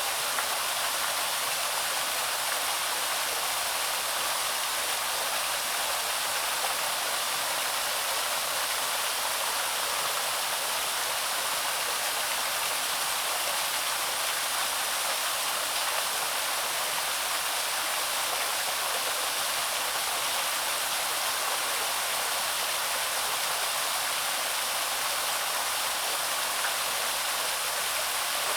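Small waterfall on a woodland stream, water pouring over rocks in a steady, even rush with little low rumble.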